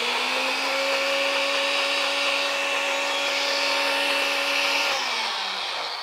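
Personal blender motor running steadily with a constant whine while pureeing simmered dates with orange juice and maple syrup, then spinning down with a falling pitch near the end.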